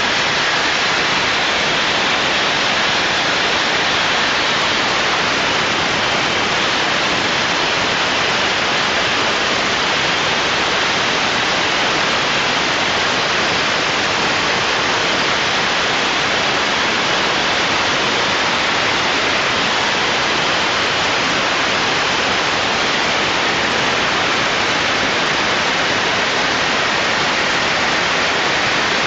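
Soda wash nozzle blasting soda media into a plugged radiator core: a loud, steady hiss that does not change throughout.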